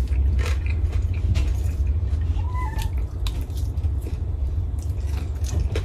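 A person eating crunchy concón (crispy pot-bottom rice) and fried chicken: irregular small clicks and crunches of chewing and of a plastic spoon against a plate, over a steady low hum.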